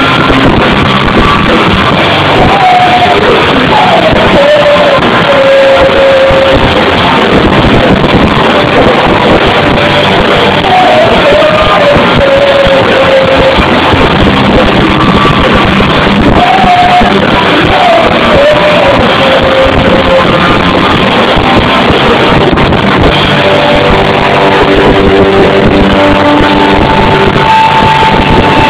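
Live rock band playing loud, with a singer's voice over it sliding up and down in pitch and a long held note near the end.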